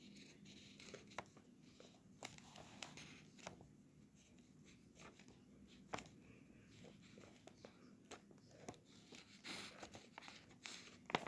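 Faint scratching of writing on paper, with scattered soft ticks as the tip touches down on the page.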